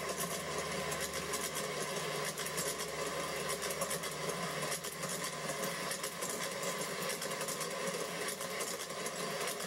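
Garden-railway model passenger train rolling past: a steady, fast clatter of metal wheels over rail joints and switch points, with a mechanical hum.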